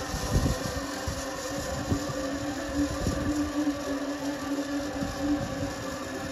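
Zipline trolley pulleys running along the steel cable: a steady humming whir that is strongest in the middle and fades towards the end as the rider moves away. Wind rumbles on the microphone.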